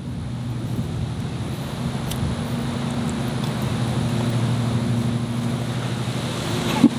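Steady low hum of a motor running in the background, with a single short click near the end.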